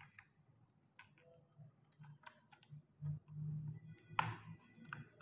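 Faint scattered clicks and taps, like plastic keys or a keyboard being handled, with one sharper click a little after four seconds in and a low rumble shortly before it.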